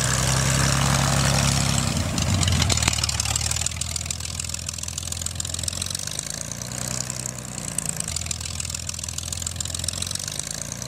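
Light aircraft's Corvair-derived six-cylinder engine and propeller running at low taxi power, loudest at first and then fainter about a third of the way in as the plane moves off.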